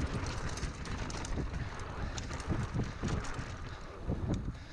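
Wind buffeting the microphone and tyres rumbling on a dirt singletrack as a mountain bike descends at speed, with rapid knocks and rattles from the bike over the bumps.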